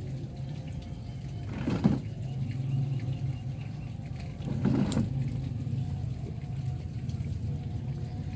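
Two brief rustles of plants and soil being handled, about two and five seconds in, over a steady low hum.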